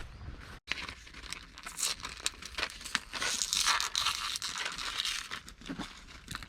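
Packaging of new miniature bulbs being handled and opened: irregular crinkling and tearing with small clicks.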